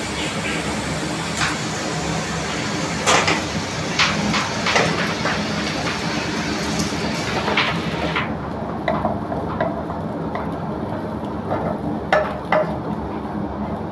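Stir-frying in a nonstick frying pan: a spatula scrapes and knocks against the pan as chopped vegetables and scrambled egg are tossed in hot oil, over a steady sizzle and the low roar of the gas range. The high hiss of the sizzle drops away about eight seconds in, and a few sharp knocks of the spatula follow.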